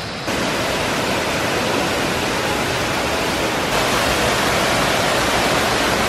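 Steady rushing of a rainforest waterfall and stream over rocks. It comes in abruptly just after the start and grows slightly louder a little past halfway.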